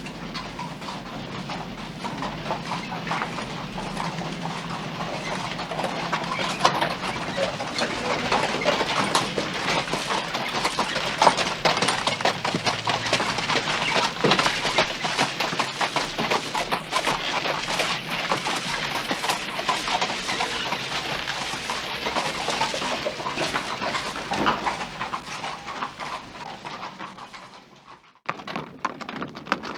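Horse hoofbeats, a dense clatter of many hoof strikes that builds over the first several seconds and fades away shortly before the end, where a new horse recording cuts in.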